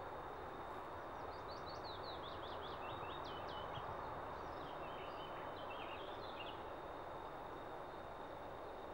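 Quiet outdoor ambience, a steady hiss, with a songbird singing a run of quick chirping notes for several seconds from about a second in; a faint steady high tone sits under it throughout.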